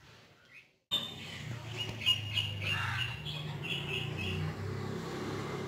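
Birds chirping in the background, a run of short high notes a few times a second, over a low steady hum. The sound starts about a second in after a moment of silence.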